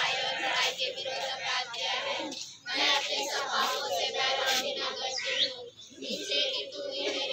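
A group of children singing a devotional hymn together, with brief breaks between lines.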